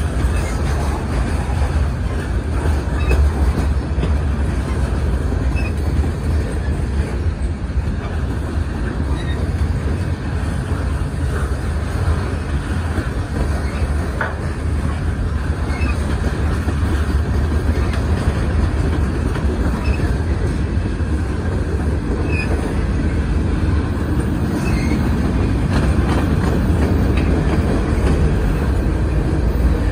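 Freight train's covered hopper and autorack cars rolling past: a steady, heavy rumble of steel wheels on rail, with occasional faint clicks and brief high squeals from the wheels.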